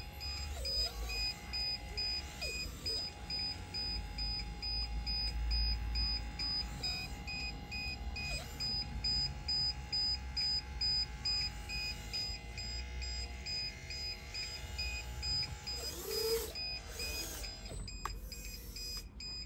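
Hydraulic pump of a 1/16 scale RC excavator, converted from electric to hydraulics, running with a steady whine whose pitch drops and recovers several times as the controls load and unload it. Over it, short high electronic beeps come about three a second, in runs that stop and start.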